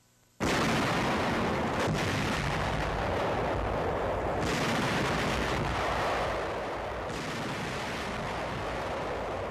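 Battle sound on an old film soundtrack: a loud, continuous din of artillery fire and explosions that starts abruptly about half a second in and runs on as a dense wash rather than separate shots.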